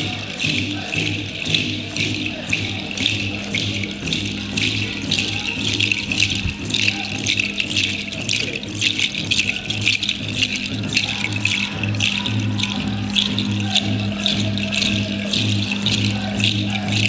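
Music led by a hand rattle shaken in a fast, even rhythm over a steady low drone.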